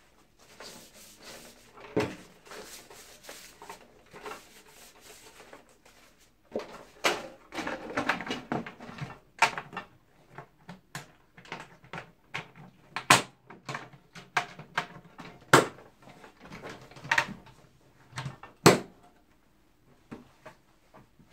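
Handling of a street lamp's hinged clear plastic cover as it is swung up and pressed shut onto the lamp housing: rustling and scraping with a string of sharp knocks and clicks, the loudest near the end.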